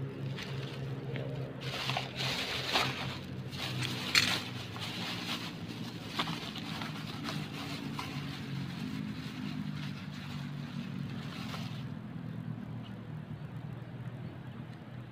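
A steady low engine hum runs throughout. Over it come irregular clicks and scrapes from a fishing rod being handled and set down, which stop about twelve seconds in.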